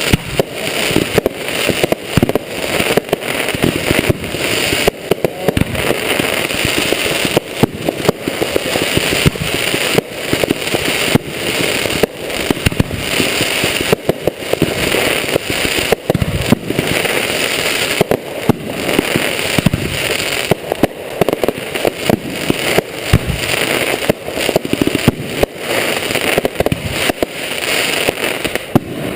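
Fireworks going off in rapid, continuous succession: a dense run of bangs and crackling, several reports a second, with no pause.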